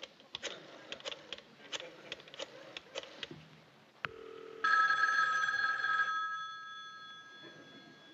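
Rotary telephone being dialled, the dial clicking as it turns and runs back. Then a telephone bell rings once, loud, for about a second and a half, and dies away.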